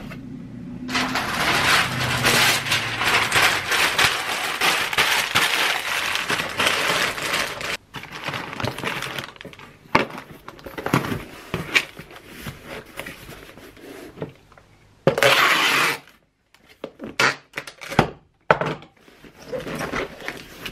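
Plastic bubble wrap and cardboard boxes handled during packing: dense crinkling and rustling for several seconds, then scattered knocks and scrapes. A short, louder rustle comes about fifteen seconds in.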